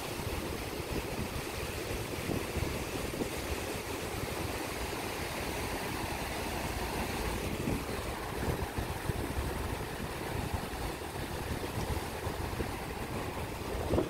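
Small waves washing steadily against a granite rock jetty and up the sand, with gusts of wind rumbling on the microphone.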